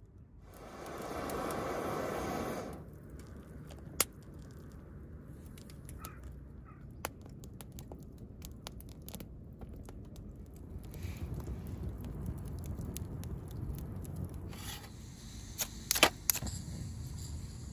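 Wood fire crackling, with scattered sharp pops. Near the start a louder rushing sound lasts about two seconds, and near the end come a few loud clicks as a gas canister stove is handled.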